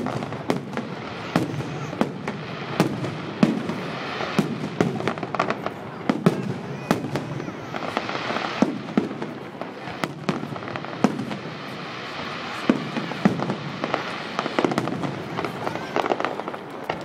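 Fireworks salute going off: a rapid, irregular string of sharp bangs from bursting shells, several a second, with crackling between them.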